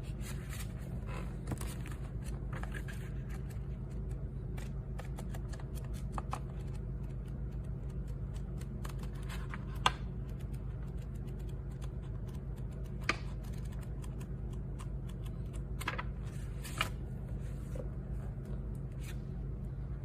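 Steady low background hum with scattered small clicks and faint scraping or rustling, like objects or a device being handled.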